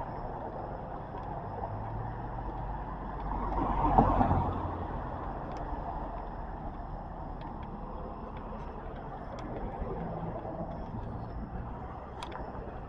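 Street traffic noise, with a vehicle passing by about four seconds in, rising and then fading.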